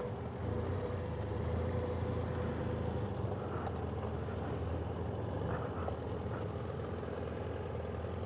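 BMW F800GS motorcycle engine running steadily at low revs as the bike rolls slowly along, a low, even hum.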